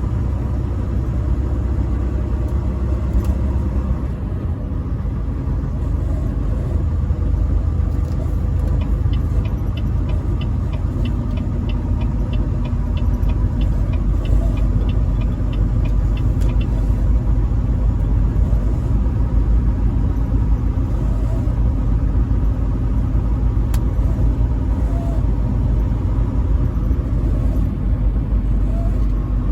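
Semi-truck driving on the interstate: a steady, loud low rumble of engine and road noise with a faint steady whine above it. For several seconds in the middle, a faint, regular ticking runs at about three ticks a second.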